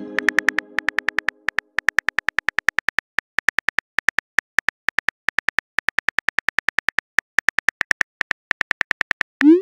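Rapid, even clicks of a simulated phone keyboard typing, a texting-app sound effect, at about five or six a second. A chime fades out during the first second, and a short rising whoosh, the message-sent sound, comes just before the end.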